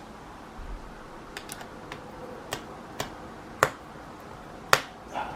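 Scattered sharp clicks and small taps of a Phillips screwdriver working the battery screws inside a Dell XPS 13 9360 laptop, at uneven spacing, with two louder clicks near the end.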